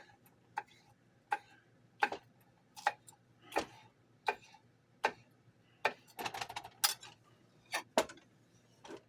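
Kitchen knife chopping vegetables on a cutting board: single sharp cuts about every three-quarters of a second, with a quicker run of cuts a little past the middle.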